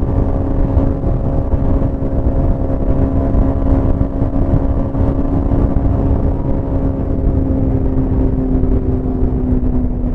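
Hyosung GT650R's 647 cc V-twin engine running at a steady road speed, with wind rumble underneath. The note drops slightly in pitch near the end.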